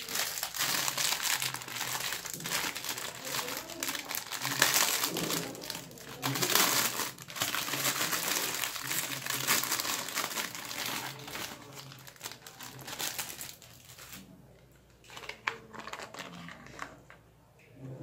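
Thin clear plastic bag crinkling and rustling as it is handled and a small toy is pulled out of it, dense and continuous for most of the time. It falls quieter near the end, with a few light clicks of hard plastic being handled.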